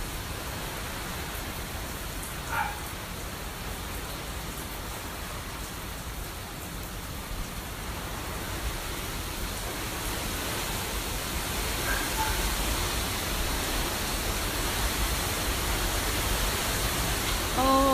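Hurricane rain and gusting wind: a steady rushing hiss with a low rumble of wind on the microphone, growing louder in the second half.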